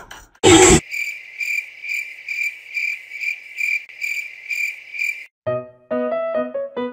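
A short, loud noise burst, then a cricket chirping steadily about twice a second for roughly four seconds, the comic 'awkward silence' sound effect. Keyboard music starts near the end.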